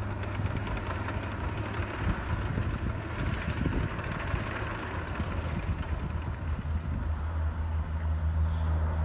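Distant Antonov An-12's four turboprop engines running with a steady low drone, growing louder over the last couple of seconds.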